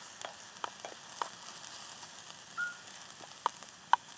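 Onions and mushrooms frying in a pan: a steady sizzle with a handful of sharp pops scattered through it.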